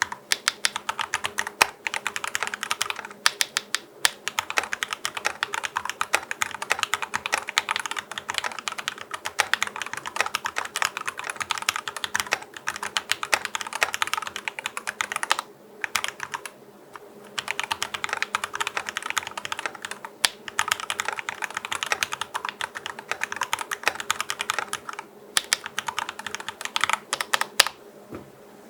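Fast typing on a GMMK PRO mechanical keyboard with a brass plate and Akko x TTC Demon switches lubed with Krytox 105+205: dense runs of quick keystroke clacks. The runs pause briefly a few times and stop near the end.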